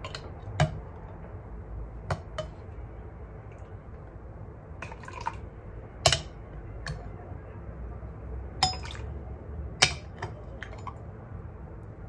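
Metal ladle clinking against a glass pot, about eight sharp clinks spread out, with some soft liquid sounds as tremella soup is scooped and poured into a plastic cup.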